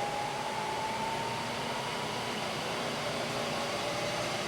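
Spindle of a Bridgeport EZ TRAK DX vertical mill running without load in high range, its head freshly rebuilt. It makes a steady whir with a whine that rises a little in pitch over the first second or so, as the spindle speed is raised from about 1,000 toward 2,000 rpm, then holds.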